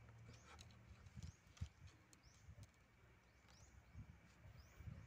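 Near silence: faint, high chirps from a bird, repeated about once a second, with one soft click about one and a half seconds in.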